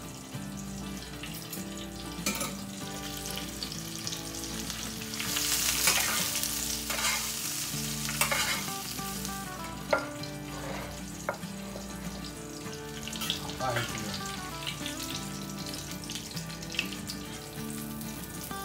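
Butter sizzling in a covered frying pan where a cobia fillet braises with rosemary: a steady frying hiss that grows louder about five to nine seconds in, with a few light clicks.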